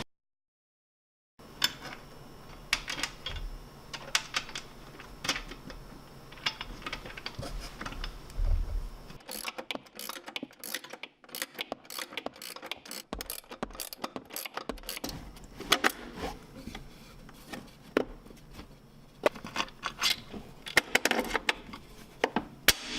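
Irregular metallic clicks, taps and clinks of hand tools and metal bumper parts being handled and fitted together on a snowmobile, with a short stretch of silence at the very start.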